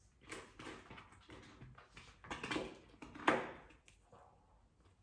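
Eating rice from a bowl: a spoon and chopsticks scraping and tapping against the bowl, mixed with chewing, in short irregular bursts. The loudest comes about three seconds in.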